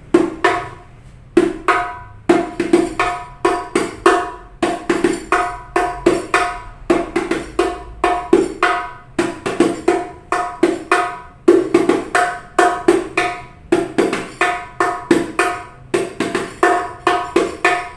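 Rebana hadroh frame drum with a carved mahogany shell, hand-struck in a steady rhythmic pattern of several strokes a second, each stroke ringing briefly. The new skin head is still very tight, giving a high, hard tone that should loosen after a few sessions of playing.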